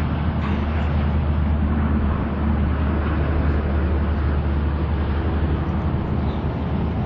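Steady, even rumble of distant freeway traffic, heaviest in the low end, with no single vehicle standing out.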